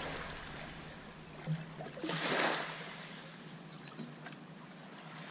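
Shallow bay water lapping around a wooden jetty, with one brief louder rush of water about two seconds in.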